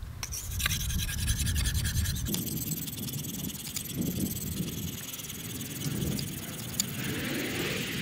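Steel knife blade stroked back and forth over a hand-held Belgian whetstone wet with slurry: a soft, gritty scraping, repeated stroke after stroke, as the edge is honed to a fine polish on the finest stone.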